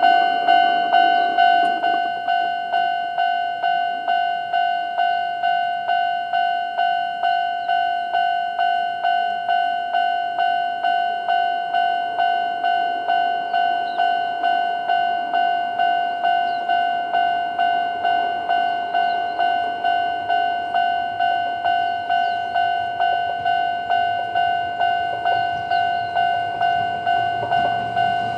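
Japanese railway level-crossing alarm of the older standard electronic bell type, ringing steadily at about two strikes a second to warn of an approaching train. Near the end, the noise of the approaching train begins to rise under it.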